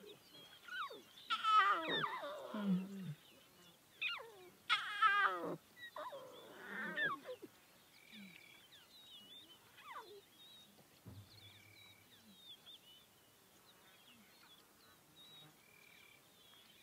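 Lion cubs mewing: a run of high calls that each fall in pitch, clustered in the first seven seconds. After that only faint high chirping remains.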